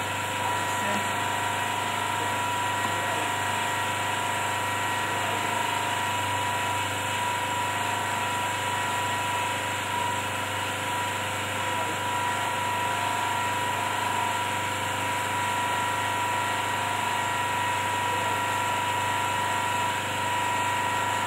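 A steady machine hum with a constant high tone over it.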